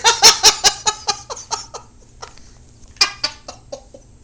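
A woman laughing in a quick run of short bursts that fade away over about two seconds. About three seconds in, a sharp burst sets off another short run of laughter, her reaction to being sneezed on in the face by her dog.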